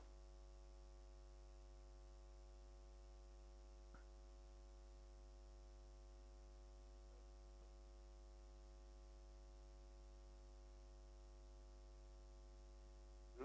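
Near silence: a faint steady low electrical hum, with one faint click about four seconds in.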